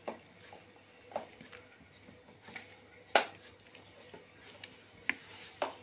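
A spoon scraping and tapping against a plate while stirring chopped chicken filling, with a few scattered clicks and one louder tap about three seconds in.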